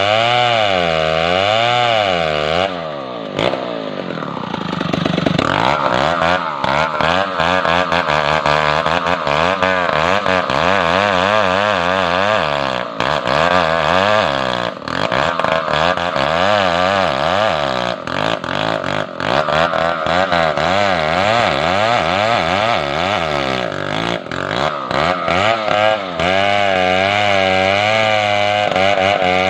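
Large two-stroke chainsaw running under load as it cuts lengthwise through a big hardwood log. Its pitch rises and falls in a regular wobble, dips briefly about three seconds in, then climbs back and turns rough and choppy as the chain bites into the wood for most of the stretch, before the even wobble returns near the end.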